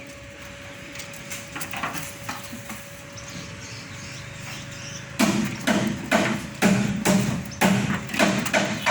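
Repeated sharp knocks, about two to three a second, starting about five seconds in after a few faint taps, over a faint steady hum.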